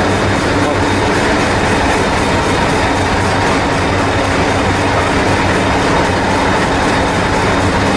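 A train running: a steady, loud rolling rumble with a constant hum.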